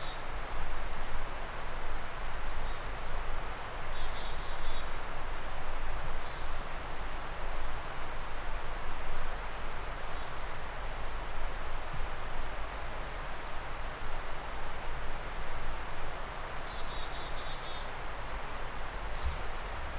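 A small songbird singing repeated very high, thin phrases of quick chirps and trills, over a steady rushing hiss of outdoor background noise.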